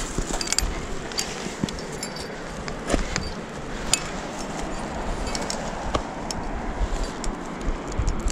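Climbing hardware such as karabiners and protection gear on a harness clinking in scattered light clicks as a climber moves up a rock slab, over a low rumble of wind on the microphone.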